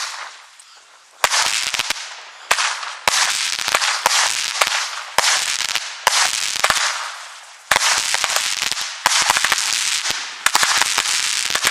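A 25-shot consumer firework cake (Nico Feuerwerk 'Der Checker') firing shot after shot, roughly one every half second to a second. Each sharp shot is followed by a lingering hiss from the burning effect.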